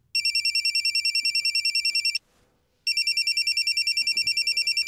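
Telephone ringing: two high, rapidly trilling rings of about two seconds each, with a short pause between them.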